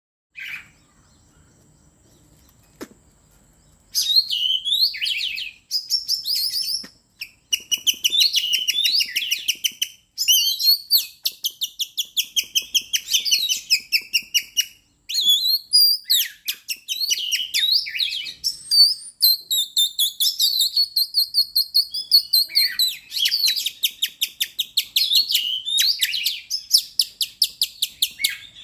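Oriental magpie-robin (kacer) singing vigorously: long runs of rapid, repeated high whistled notes and trills, starting about four seconds in and continuing with only brief pauses.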